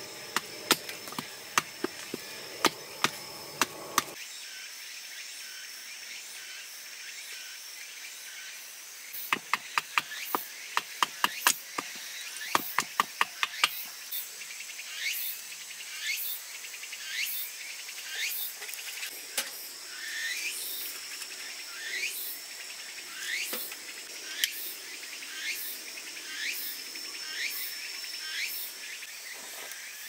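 Knife work on firewood: sharp knocks of a blade being struck and cut into a stick, in two bunches. Then a steady series of short scraping strokes, about one a second, as the stick is shaved into thin curls. A steady high insect drone runs underneath.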